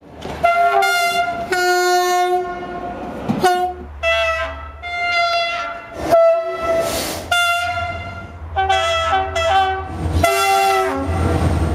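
About ten railway locomotive horn blasts in quick succession, some short and some held for about a second, each sounding two notes together. A low steady rumble runs underneath from about four seconds in.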